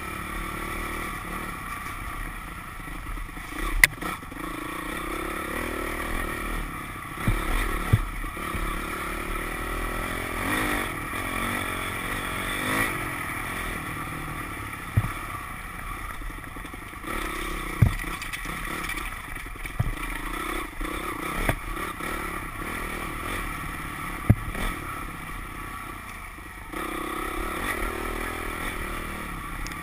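Dirt bike engine running under riding load, its revs rising and falling. Occasional short sharp knocks cut through it, the loudest sounds.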